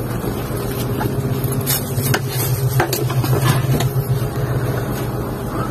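Sumitomo SH250 hydraulic excavator's diesel engine running steadily under working load, heard from inside the cab, with scattered clicks and knocks as the machine digs.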